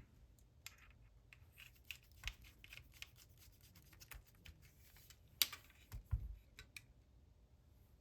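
Small clicks, ticks and taps of tools and metal parts handled on a Canon F-1 camera body during reassembly. A sharper click comes about five seconds in, and a couple of soft knocks follow just after.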